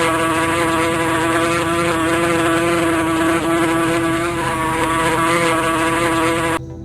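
Insect buzzing: one steady, even drone, played as a sound to guess, that cuts off suddenly near the end.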